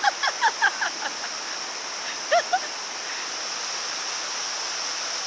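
Aek Aloban waterfall rushing steadily. Over it come a quick string of short, high calls in the first second and two more a little after two seconds in.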